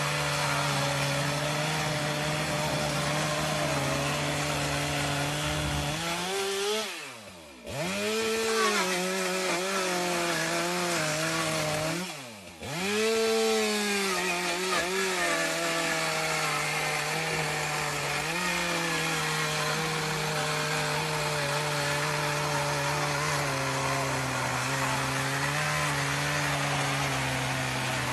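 Two-stroke petrol power saw running at high revs as it cuts into a front door. Twice, about seven and about twelve seconds in, the engine falls away almost to idle and then revs back up.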